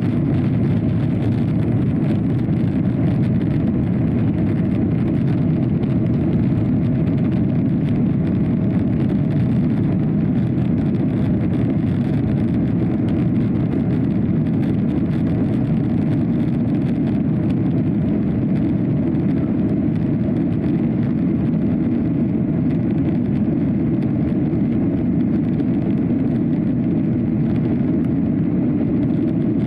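Boeing 737-800 cabin noise from a window seat over the wing, climbing after takeoff: the CFM56 engines and rushing air make a steady, deep noise, with a faint steady hum above it.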